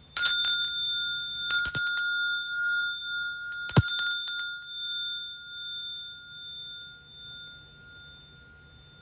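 Altar bells rung at the elevation of the host during the consecration: three short shakes, each a quick cluster of strikes. Their high, clear tones ring on and slowly fade after the third shake.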